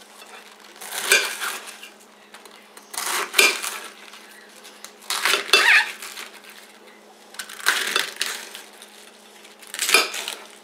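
Large kitchen knife slicing through a half head of raw green cabbage on a ceramic plate: five crunching cuts about two seconds apart, each ending in a click of the blade against the plate.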